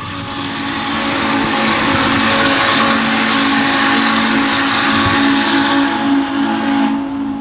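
Norfolk and Western Class J 611 steam locomotive's whistle blowing one long blast of about seven seconds. Several notes sound together over a loud hiss of steam, and the blast cuts off sharply at the end.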